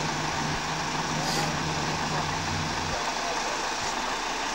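Heavy diesel engine of a mobile crane running steadily while it holds a load on the hook. Its low hum drops away about three seconds in.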